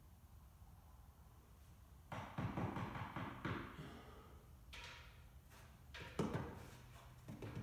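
Nail gun firing into reclaimed wood boards being fastened to a wall: about five sharp knocks, starting about two seconds in and spaced a second or so apart.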